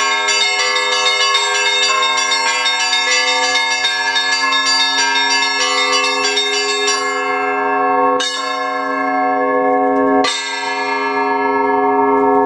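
Russian Orthodox church bells of a belfry being rung: a quick peal of small bells over the held ringing of larger bells for about seven seconds, then the rapid strikes stop and two single strokes come about two seconds apart while the bells ring on.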